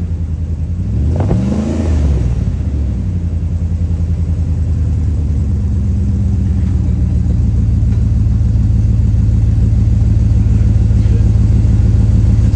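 1999 Dodge Durango's exhaust through a newly fitted Thrush glass pack muffler. The engine is blipped once about a second in, then idles steadily with a deep, even exhaust note.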